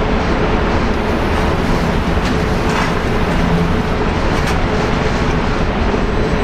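Steady, loud rushing noise with a constant hum and no gunshots. A faint short tick comes near the middle.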